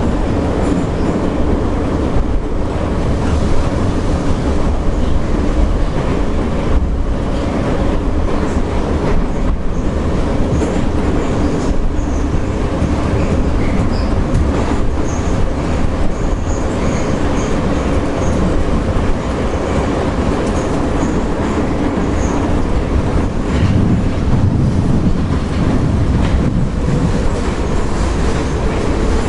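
Metro car (81-717/714 series) running at speed through the tunnel, heard from inside the carriage: a loud steady rumble with wheel clatter. A few faint high wheel squeals come around the middle.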